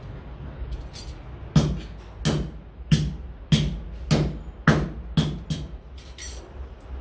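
Hand hammer striking a flat iron strip on an iron anvil block: about eight sharp metallic blows, roughly two a second, starting about one and a half seconds in. A lighter metallic clink follows near the end.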